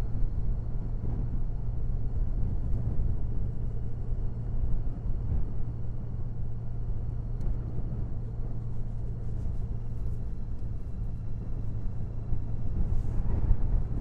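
Honda Valkyrie's 1.8-litre flat-six engine running steadily under way, a low hum mixed with wind rushing and buffeting on the microphone.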